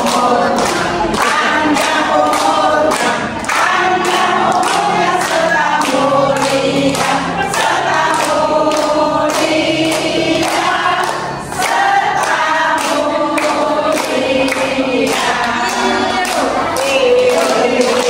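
A group of women singing together while clapping their hands in time, about two claps a second.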